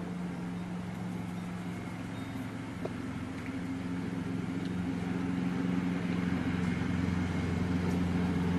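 An engine running with a steady low hum that grows slowly louder.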